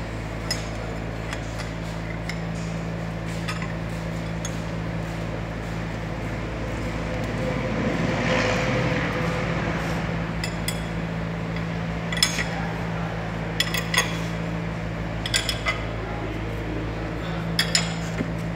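Hand tools clinking on the steel nuts and strap clamps as a connecting rod is clamped down on a boring machine table: a run of sharp metal clinks, coming more often in the second half, over a steady hum.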